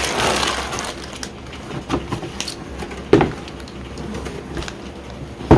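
Sealed plastic bags of Lego pieces rustling and crinkling as they are tipped out of the cardboard box, with a few knocks as bags and box hit the table, the loudest near the end.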